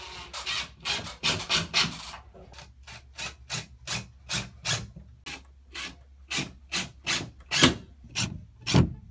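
Staple gun firing again and again, a short sharp snap about every half second, fastening heavy curtain fabric to a wooden furring strip; the snaps come a little faster in the first two seconds.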